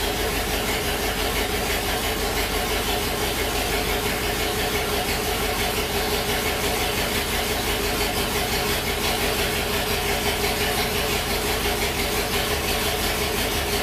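1973 International Harvester Loadstar bus's gasoline engine idling steadily just after a cold start in freezing weather, still building oil pressure.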